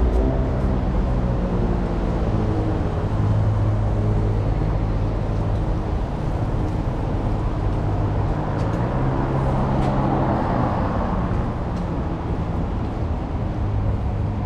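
Road traffic: vehicle engines running with low hums that shift in pitch, and one vehicle passing louder about ten seconds in.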